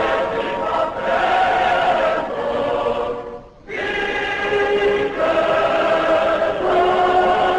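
Choir singing long held chords, breaking off briefly about three and a half seconds in, then carrying on.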